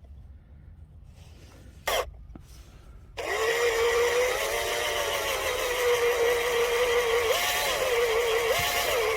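Electric drill motor, briefly triggered about two seconds in, then running at a steady whine from about three seconds in. Near the end its pitch dips and recovers several times, as the drill comes under load while boring for a drill graft in a peach branch.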